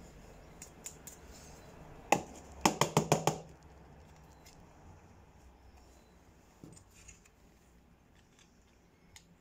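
Handling noise from a toy gel blaster and its gel-ball ammunition: a single sharp plastic click about two seconds in, then a quick run of about six clicks and taps, then only a few faint ticks.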